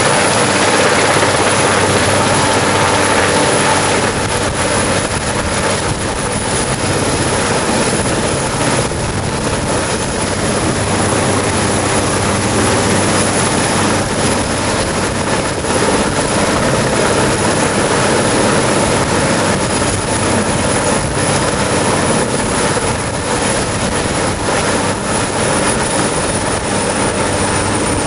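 Sikorsky AirCrane heavy-lift helicopter running steadily overhead: a loud, unbroken rotor and twin-turbine roar with a thin high whine riding on top.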